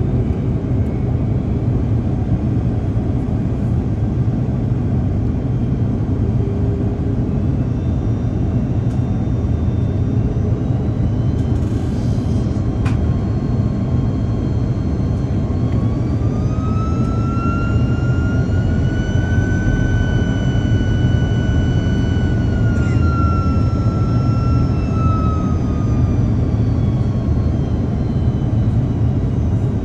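Cabin rumble of an Airbus A330-203 on descent, heard beside its GE CF6-80E1 engine. About halfway through a whine rises, holds for several seconds and then falls away again, the engine spooling up for more thrust on the approach and back down.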